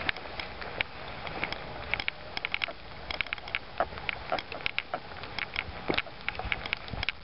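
Irregular crackling and snapping of twigs and rustling of fallen Leyland cypress branches, several sharp crackles a second, as someone pushes and steps through the downed foliage.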